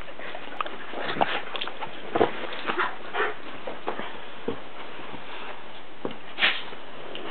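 Great Dane puppy with the hiccups: short, sudden hiccup and licking sounds at irregular intervals, over a steady hiss.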